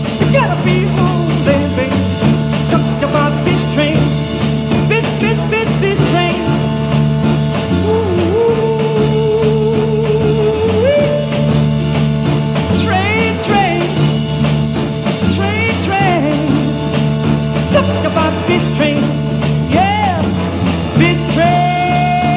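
Upbeat 1960s folk-pop band playing: strummed acoustic guitars and an upright bass over a steady beat. A voice calls out over it and holds a long wavering note about a third of the way through.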